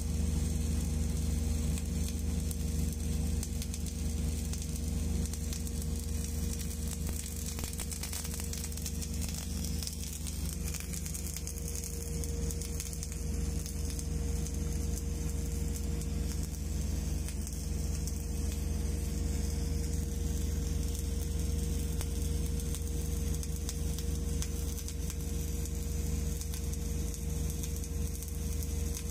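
Arc welding on a pipe by a mechanized orbital welding carriage: a continuous crackling sizzle of the welding arc, with a steady low hum underneath.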